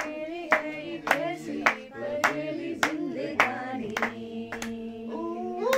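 People singing a slow melody with long held notes, kept in time by steady hand clapping, a sharp clap a little under twice a second.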